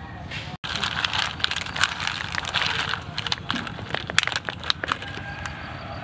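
Mussel shells clicking and clattering against each other as hands scoop through a basketful of them. A dense run of clicks starts about a second in and thins out near the end.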